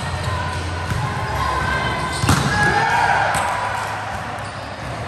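Indoor volleyball rally: a single sharp smack of the volleyball about two seconds in, the loudest sound, followed by players shouting, over the steady murmur of a large, echoing gym.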